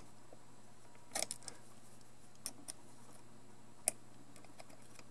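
Small screwdriver working the base plate screws of an HO-scale model locomotive chassis: a few scattered light metallic clicks and taps, the loudest near the end.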